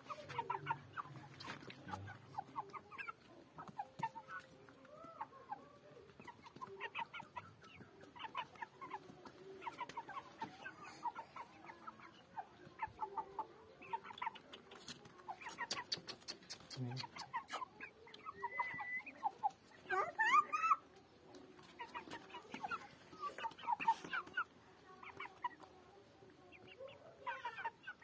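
A flock of white Shamo game fowl clucking, with short calls coming in repeated clusters and one louder call rising in pitch about twenty seconds in.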